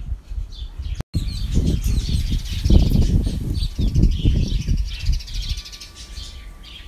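Small birds chirping and twittering in quick, overlapping calls, over a louder irregular low rumble that comes and goes.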